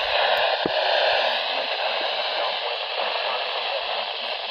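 Loud, steady hiss of static from a weather radio receiver, taking the place of the warning broadcast: a sign that reception of the signal has dropped out.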